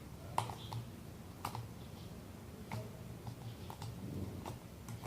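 Homemade glitter-glue slime clicking as it is squeezed and stretched in the hands: about ten small, irregular clicks and pops.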